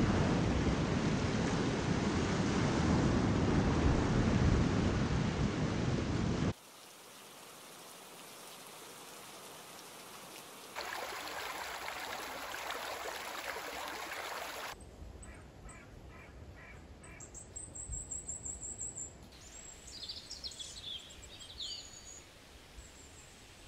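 Surf washing onto a sandy beach, cut off suddenly about six seconds in. After a quieter stretch a shallow stream ripples over stones for about four seconds, stopping abruptly. Then birds chirp and call in woodland.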